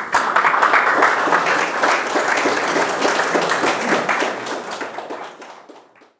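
An audience applauding, a dense crowd of hand claps that fades out over the last couple of seconds.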